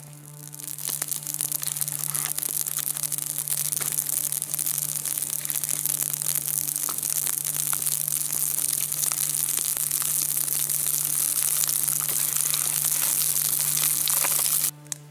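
Small campfire of dry grass, birch bark and fine kindling sticks burning, a dense crackling and hissing that builds over the first second or two and cuts off abruptly near the end.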